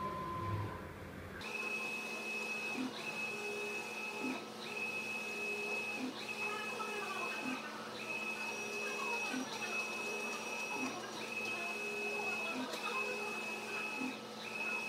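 Wide-format banner printer running, its print-head carriage shuttling across the media. From about a second and a half in, a steady high whine comes in repeated passes broken by brief pauses every second and a half or so, over a constant low hum.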